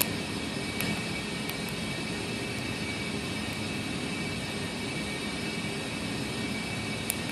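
A few sharp, light clicks of a lock pick working the spool security pins of a Commando tactical padlock: one right at the start, two or three more about a second in, and one near the end. Under them runs a steady, even whirring noise.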